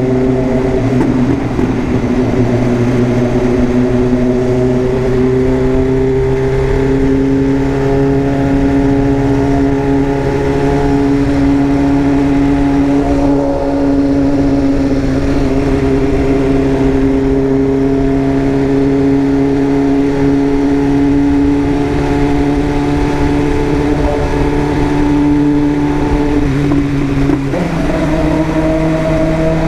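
BMW S1000RR inline-four engine running at steady revs, its pitch creeping slowly upward, with a brief dip and a shift in pitch about 27 seconds in.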